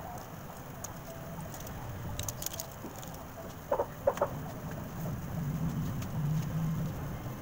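A chicken clucking: four short, loud calls in quick succession about halfway through, with a few light clicks just before.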